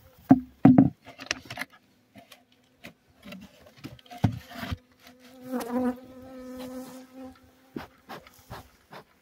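Honeybees buzzing around the hives: a steady hum, with one bee passing close and louder near the middle. Knocks and rustles of the hive cover and plastic sheet being handled come near the start and about four seconds in.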